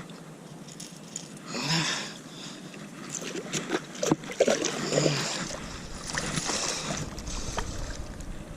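A man running, with scattered footfalls and knocks, heavy breaths and grunts, and wind rumbling on the microphone in the last couple of seconds.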